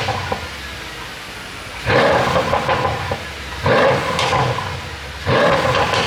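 Mercedes-AMG S63's twin-turbo V8 blipped three times from idle, each rev lasting about a second and breaking into pops and crackles as it drops back: the sound of a pops-and-bangs exhaust tune.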